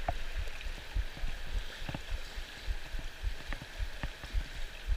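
Shallow river running over stones, a steady rush of water, with scattered low thumps on the microphone.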